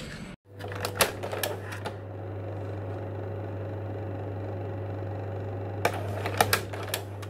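A steady low hum with two quick runs of sharp, typewriter-like clicks, one about a second in and another about six seconds in.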